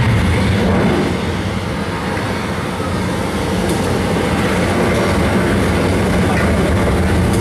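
Studio tour tram running, a steady low rumble of its drive and wheels with a slight dip in loudness a couple of seconds in.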